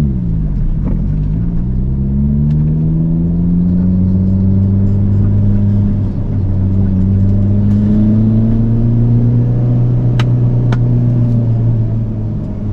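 Toyota Starlet Glanza V's turbocharged 1.3-litre four-cylinder engine running, its pitch slowly rising, dipping briefly about six seconds in, then rising again. Two sharp clicks about ten seconds in.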